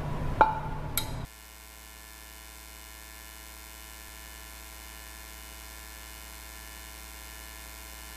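Two sharp metal clinks of cookware. About a second in, the sound cuts off abruptly to a steady, buzzy electrical mains hum.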